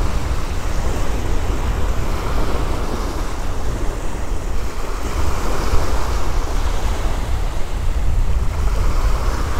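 Small waves breaking and washing up a sandy beach, the wash swelling and fading as each wave runs in, with wind buffeting the microphone as a low rumble underneath.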